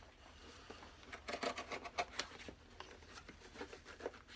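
Leather outsole being pulled off a Goodyear-welted boot, making a faint, irregular run of clicks and crackles as it tears loose from the welt stitching and glue.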